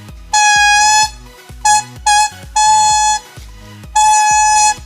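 Homemade papaya-leaf-stalk whistle (peepee) blown in five toots at one steady pitch: a long one, two short ones, then two long ones.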